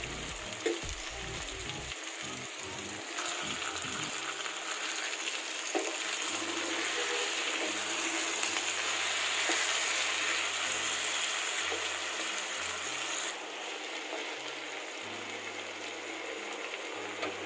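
Cubed potatoes and brinjal sizzling as they fry in oil in a pan while being stirred, with a couple of light knocks. The sizzle gets louder about three seconds in and eases back near the end.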